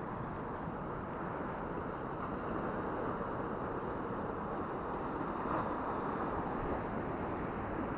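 Steady rush of sea waves washing against the rocks below, mixed with wind buffeting the camera's microphone.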